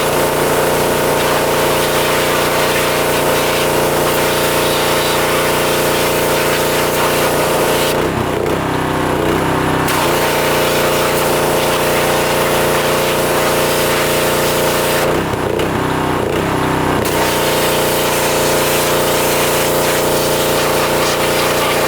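Pressure washer running steadily, its motor humming under the hiss of the spray. Twice, for about two seconds each, the spray stops as the trigger is let go and the motor's note changes, then the spray starts again.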